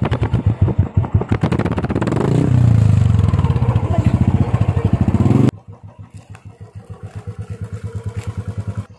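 Motorcycle engine running just after starting, with an even exhaust beat close to the pipe, revved up for a few seconds. About halfway through it drops suddenly to a quieter, steady running beat as the bike rides off.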